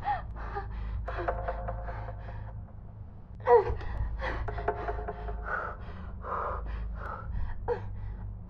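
A person gasping and sobbing in ragged, uneven breaths over a low, droning film score.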